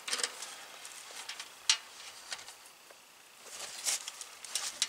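Light rustling and scattered small clicks of wires and their metal push-on connectors being handled in a heat pump's electrical panel, with one sharper click about a second and a half in and a cluster of ticks near the end.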